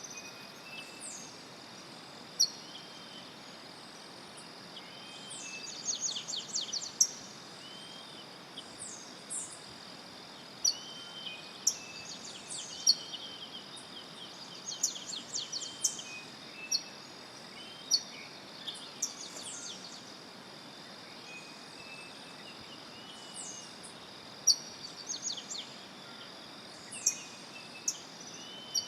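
Cloud-forest birds calling: scattered sharp, high chirps, some in quick runs of several, and softer slurred notes lower down, over a steady high-pitched insect drone and a faint even hiss.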